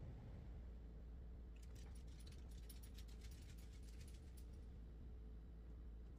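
Faint scratchy ticks of a black permanent marker drawing lines across a painted jar lid, clustered in the middle, over a low steady hum.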